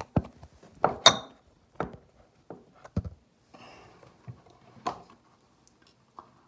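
A run of sharp knocks and bumps, the loudest about a second in, with a short rustle in the middle: a phone being handled and propped against a bathroom sink's metal faucet.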